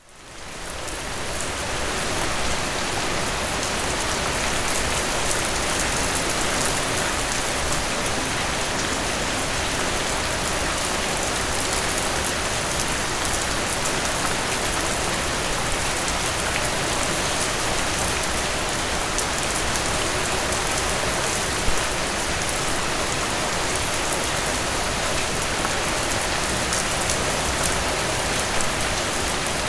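Steady rain falling, with the patter of drops hitting a surface, fading in over the first couple of seconds.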